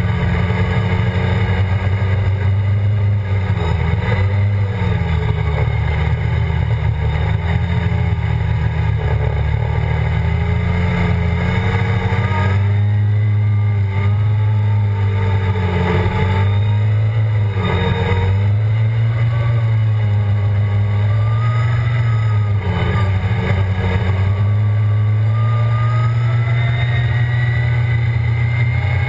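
ATV engine running hard under way, its pitch dipping briefly a few times as the throttle is eased or a gear is shifted, then climbing back, over a steady rush of wind and tyre noise.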